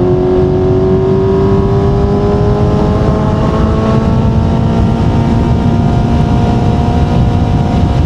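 Kawasaki Z900's inline-four engine through an Akrapovic exhaust, pulling under light throttle with the revs climbing slowly and steadily. A steady rushing noise of wind and road runs underneath.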